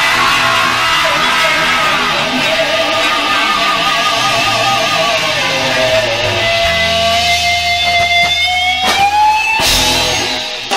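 Live rock band's electric guitar holding long notes that waver and slide in pitch over a low bass drone, with a sharp hit about nine seconds in before the sound cuts off near the end.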